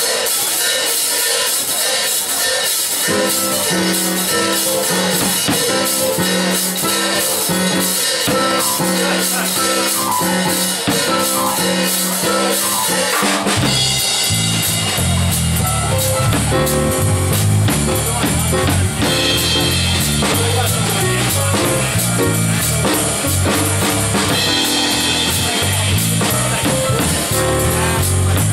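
Jazz drum kit swinging on cymbals and snare, joined about three seconds in by a digital piano comping chords, with a low bass line coming in about halfway through.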